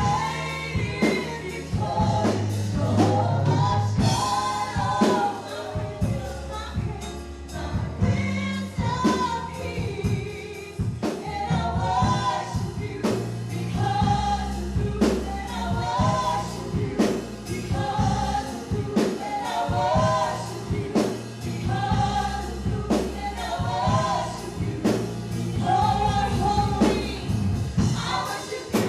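Live gospel worship music: a group of singers over a band, with steady bass notes and a regular drum beat.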